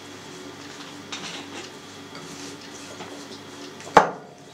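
Dough being kneaded by hand in a mixing bowl: faint rustles, then one sharp knock of the bowl about four seconds in.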